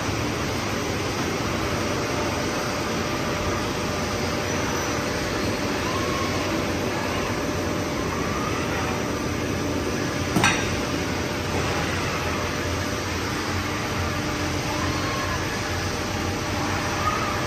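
Steady hum of a CNC machining cell with a handling robot working, with faint rising-and-falling whines. A single sharp metallic knock about ten seconds in and a lighter one near the end.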